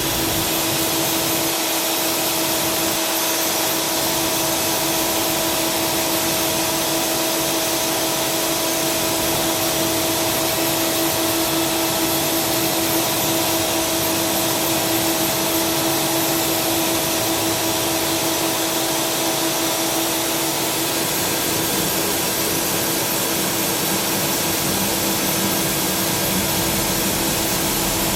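Tsugami SS32 Swiss-type sliding-headstock CNC lathe running under power, a steady hiss with a steady whine over it. The whine stops about twenty seconds in while the hiss carries on.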